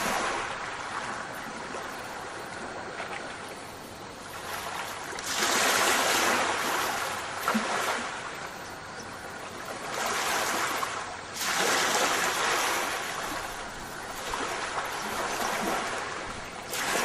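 Rushing water, swelling into louder surges about every five seconds and easing off between them.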